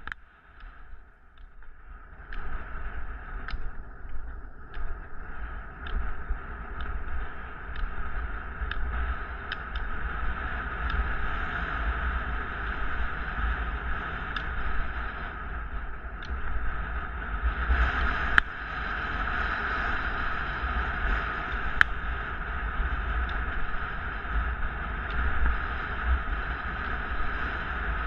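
Steady rolling noise of travel along an asphalt trail, with wind rumbling on the microphone. It is quieter for the first couple of seconds, then holds steady, with scattered faint ticks and two sharp clicks in the second half.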